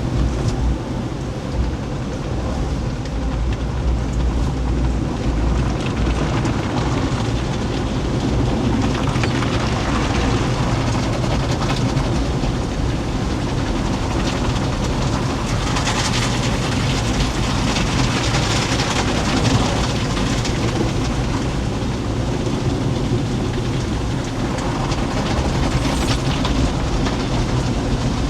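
Automatic car wash heard from inside a Jeep's cabin: water spray and wash machinery beating on the body in a steady, loud rumble and hiss, with brief surges of hiss about halfway through and near the end.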